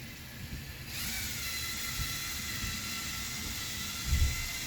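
Small electric motors of a Lego Mindstorms robot starting up about a second in and whirring steadily with a high whine. A low thump near the end.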